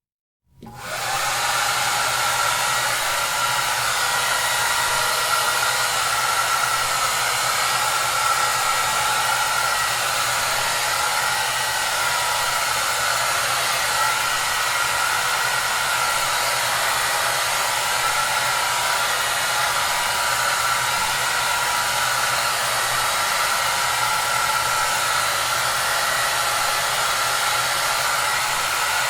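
Hair dryer running steadily, a constant even rush of air with a low hum beneath. It comes in about half a second in, after a brief silence.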